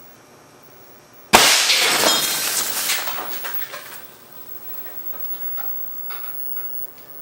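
A fire-extinguisher-tank air cannon fires a cast lead slug into a CRT television: one sudden sharp shot about a second in, with glass from the picture tube shattering and rattling down for a couple of seconds, then scattered small clinks of falling glass.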